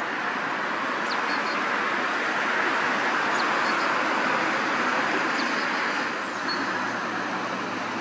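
Steady background rumble of road traffic, swelling a little in the middle and easing off near the end, with a few faint, short high chirps over it.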